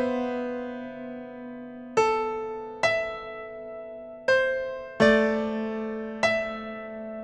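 Slow, soft piano music: single notes and chords struck a second or so apart, each left to ring and die away.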